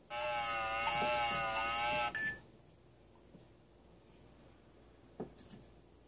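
Toy kitchen microwave's electronic sound effect, set off by a keypad button: a warbling electronic tone from its small speaker for about two seconds, ending in a brief blip. A faint click follows about five seconds in.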